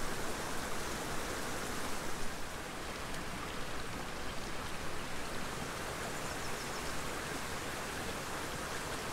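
Steady rushing of a small creek's running water, an even hiss with no separate strokes.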